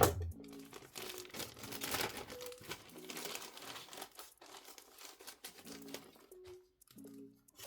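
Packaging crinkling and rustling as it is handled and opened, in irregular bursts, over soft lofi background music.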